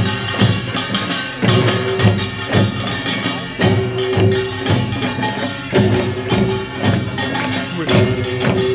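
Korean pungmul percussion band playing a fast, steady rhythm: rapid clanging strikes of small gongs over drum beats, with a deeper gong tone ringing out about every two seconds.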